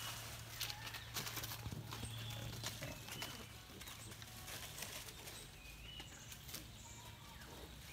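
Faint crackling and rustling of dry fallen leaves as a wild boar roots and walks through them, in scattered irregular clicks.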